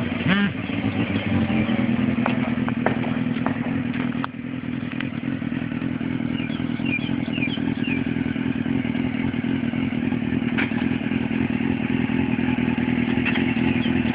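Suzuki GSX-R600 inline-four motorcycle engine running at a low, steady speed as the bike rolls off slowly in a low gear, without any hard revving. A few light clicks are heard along with it.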